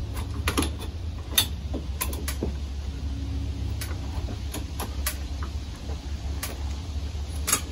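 Scattered light clicks and knocks of a ceiling fan's metal canopy housing being handled and pushed up against its ceiling mounting bracket, over a steady low rumble.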